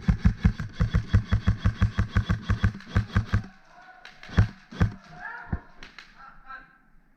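Airsoft gun firing a fast, even stream of shots, about seven a second, that stops about three and a half seconds in. A few single shots follow.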